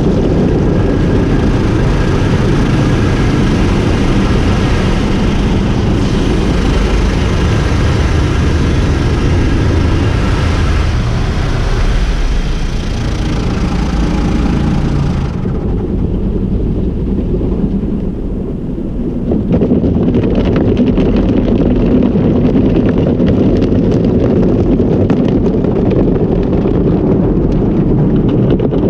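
Tunnel car wash heard from inside the car: cloth washers scrubbing over the windshield and water spraying on the glass, loud and steady. About fifteen seconds in the hiss drops away and the sound goes duller, then a few seconds later spray is drumming on the car again.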